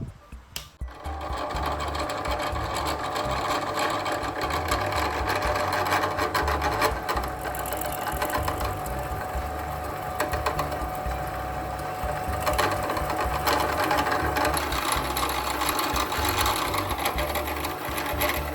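Electric power tool starting about a second in and running steadily, with a thin steady whine over a rapid mechanical clatter.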